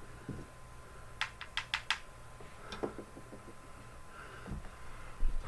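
Five light, sharp clicks in quick succession about a second in, then a few fainter taps, over a faint steady tone.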